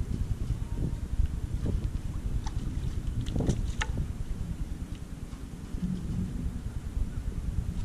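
Wind buffeting the microphone as a steady low rumble, with a few short splashes and clicks about two and a half to four seconds in as hands pull trash and leaves out of a flooded, blocked storm drain.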